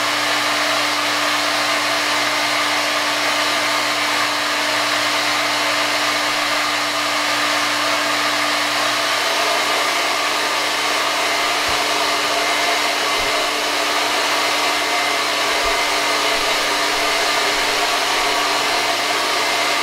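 Hair dryer running steadily at constant motor speed, a continuous rush of air with a steady low hum, blowing up a tube to keep a ping-pong ball aloft. A few faint low knocks come in the second half.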